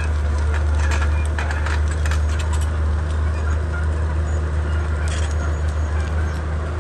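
Komatsu D31P bulldozer's diesel engine running at a steady, low drone, with scattered sharp clicks and cracks, a cluster about a second in and another about five seconds in.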